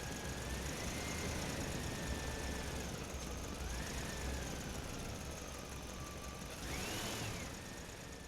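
Small electric motors of a radio-controlled construction model whining as they work, the pitch rising and falling several times and climbing higher briefly about seven seconds in.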